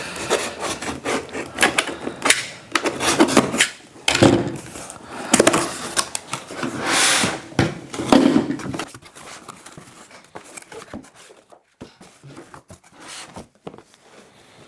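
Cardboard laptop box being opened and its packaging handled: knocks, scrapes and rustling for the first nine seconds or so, then a few light clicks.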